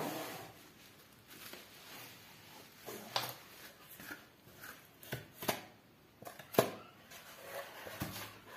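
Bubble wrap and a flat cardboard sleeve being handled and unfolded by hand: soft rustling with several sharp crackles and snaps, the loudest about six and a half seconds in.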